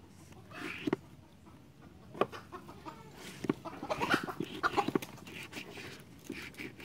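Chickens clucking in short calls, with the soft scrape and tap of a glue brush worked over rubber tyre strips.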